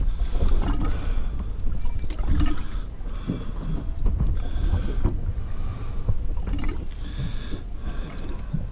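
Wind rumbling over the microphone and water lapping at the hull of a small fishing boat, with scattered small clicks and knocks as hands handle fishing tackle.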